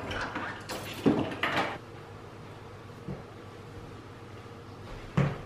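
A few short knocks and thuds of household handling: a cluster in the first two seconds, a faint one around three seconds in, and a sharp one near the end.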